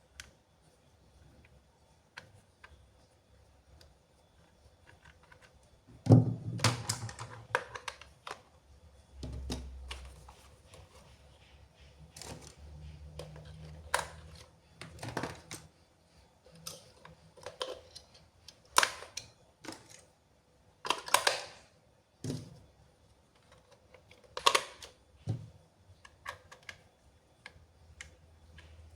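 Irregular clicks, taps and short rustles of plastic toys and packaging being handled, with a louder knock about six seconds in.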